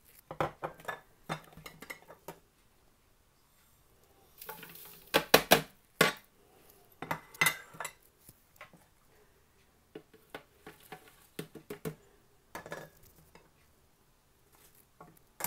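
Chopped chutney ingredients being tipped from plates into a blender jar: bursts of clinks and clatters of plates and spoons against the jar, with pieces dropping in. The loudest clatter comes about five seconds in, just after a short rush of something poured.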